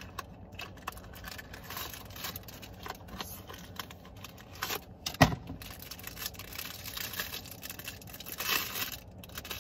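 Packaging being rustled, crinkled and torn open as a set of car seat hooks is unboxed, with small clicks of handling and one sharp snap about halfway through.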